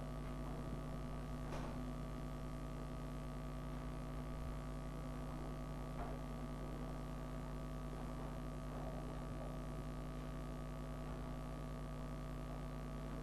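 Steady electrical mains hum under quiet classroom room tone, with a couple of faint clicks about a second and a half in and again about six seconds in.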